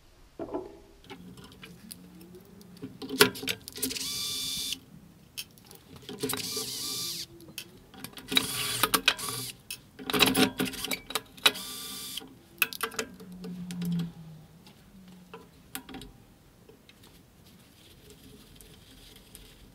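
Cordless driver running in several short bursts with a whining motor, backing out the fasteners that hold the old feed wheels on a shaper power feeder. Clicks and knocks of metal parts and tools being handled come between the runs.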